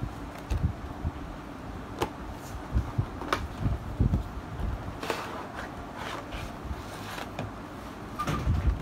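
Cardboard headphone packaging being handled: the box is opened and an inner box slid out, with irregular scrapes, taps and low thumps against a table, then a clear plastic tray handled near the end.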